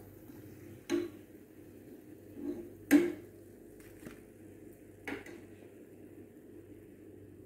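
A metal slotted spatula clinking against a plate of fried medu vadai several times, the loudest clink about three seconds in, over a faint steady hum.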